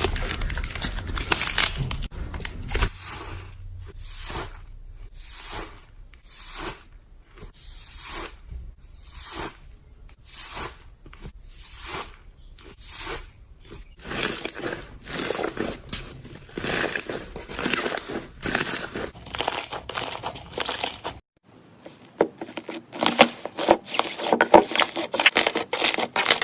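Slime being squeezed and stretched by hand, giving a run of short crackling, popping squishes, about two a second for a stretch, then a faster, denser run after a sudden change near the end.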